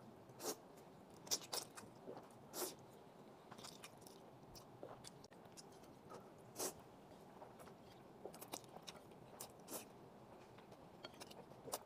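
A person eating spaghetti with black pepper beef: faint, close-up slurping of noodles and chewing, with irregular short wet smacks and clicks.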